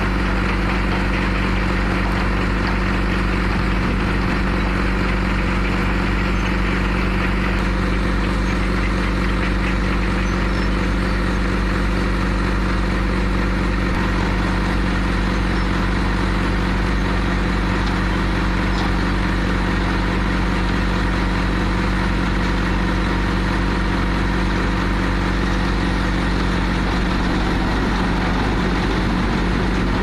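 Diesel engine of a C3 concrete mixer pump running at a steady speed, with a constant hum and mechanical noise from the machine.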